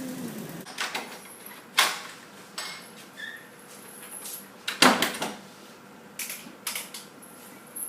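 A low motor hum dies away at the start, followed by scattered knocks and clicks; the two loudest knocks come about two and five seconds in.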